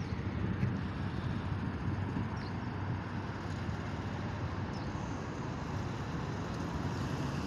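Steady, even noise of road traffic on a highway.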